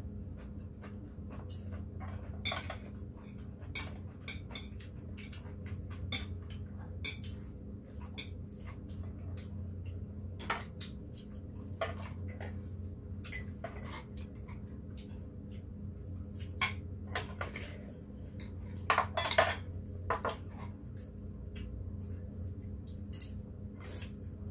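Metal spoons and chopsticks clinking and scraping against ceramic bowls, plates and a pot in irregular taps while a meal is eaten. There is a louder run of clinks about three quarters of the way through, all over a low steady hum.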